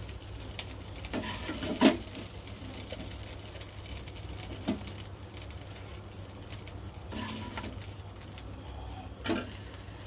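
Kitchen noise over a steady low hum: a few scattered knocks and clinks of utensils and cookware, the loudest about two seconds in.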